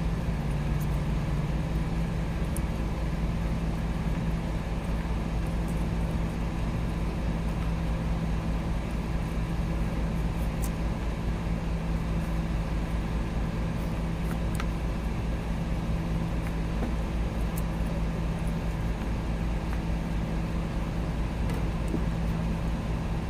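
Steady low mechanical hum over a constant rumble, holding one pitch throughout, with a few faint ticks.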